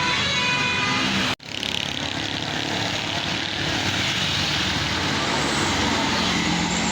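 A bus's telolet horn playing a multi-note tune, cut off abruptly about a second and a half in. It is followed by the steady rush of a vehicle passing at speed.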